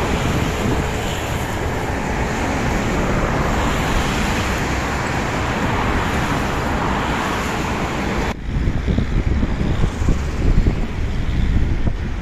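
Steady hiss of passing road traffic with wind on the microphone; about eight seconds in it cuts abruptly to gusty wind buffeting the microphone.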